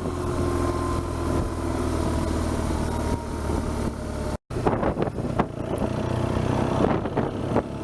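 BMW R1200GS boxer-twin engine running steadily while riding, with wind rush over it. The sound drops out completely for a moment about four and a half seconds in, at a recording cut, then the same riding noise resumes.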